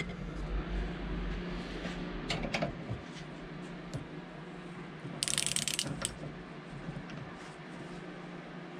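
Light metallic clinks as a wrench and socket are fitted to a diesel injector's nozzle nut for torquing. About five seconds in comes a short rattling run of ratchet clicks. A faint steady low hum sits underneath.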